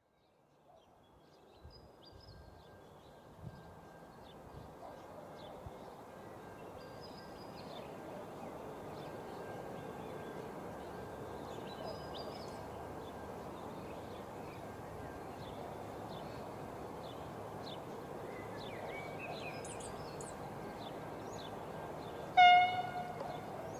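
Birds chirping over a steady outdoor background that swells up over the first several seconds. Near the end, one short train horn blast, the loudest sound.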